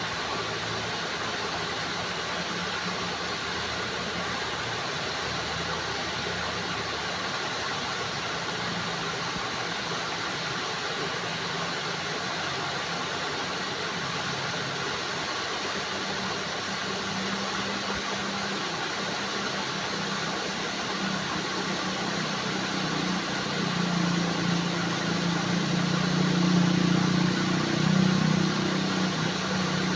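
Steady rush of flowing, trickling water, with a low rumble underneath that swells louder in the last several seconds.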